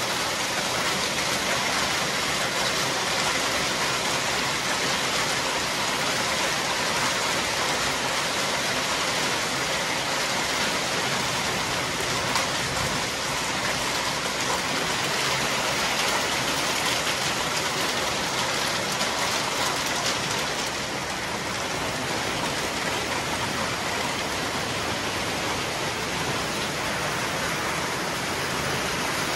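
Hail mixed with heavy rain pelting down on concrete paving and a garden: a loud, steady, dense patter of countless small hailstone and raindrop impacts.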